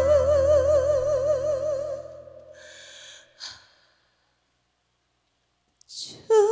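A female trot singer holds a long sung note with a wide vibrato over sustained accompaniment, both fading out about two seconds in. A breath follows, then a silent pause, then another breath just before she starts singing again near the end.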